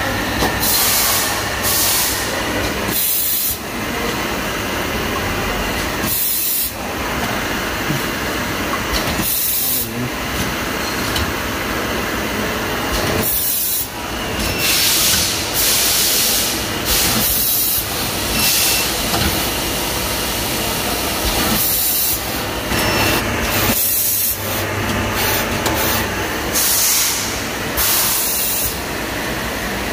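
Automatic turntable filling machine running, a steady mechanical din broken every second or two by short sharp hisses of air as it cycles.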